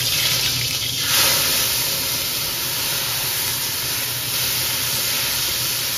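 Thai sukiyaki sauce ladled into hot vegetable oil in a wok, sizzling with a loud, steady hiss that swells about a second in as the sauce flashes to steam.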